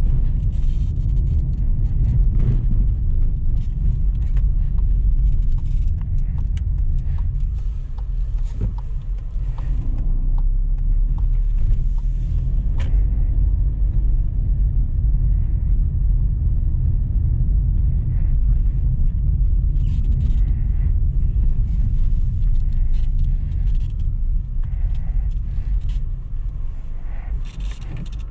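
In-cabin sound of a Volkswagen T-Cross 200 TSI (1.0-litre turbo three-cylinder, automatic) being driven on town streets: a steady low rumble of engine and tyre noise, with scattered light clicks and knocks. It eases off near the end as the car slows to a stop.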